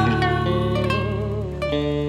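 Vietnamese cải lương accompaniment between sung lines: plucked string instruments, led by guitar, play held notes that bend and waver in pitch over a steady low backing.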